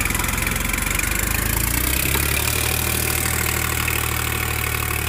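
Diesel tractor engine running steadily, its low note growing stronger about two seconds in.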